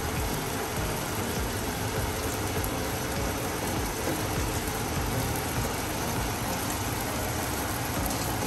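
Cooking wine sizzling and bubbling in a hot, steaming wok on a gas stove, stirred with a metal spoon, over a steady low rumble.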